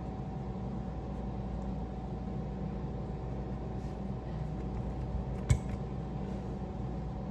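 Steady low electrical hum of a room, with one sharp click or tap about five and a half seconds in.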